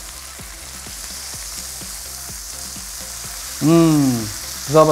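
Pork belly and chicken thighs sizzling steadily on a hot tabletop grill plate, with scattered small crackles. About three and a half seconds in, a person gives a short voiced hum that falls in pitch.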